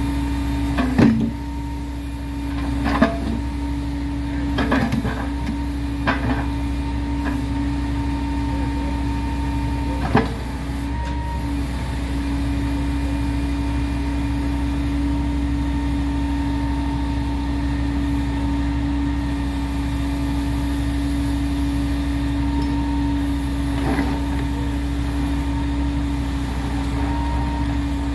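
Track machine engine running steadily with a constant hum. Several sharp knocks come in the first ten seconds and one more near the end.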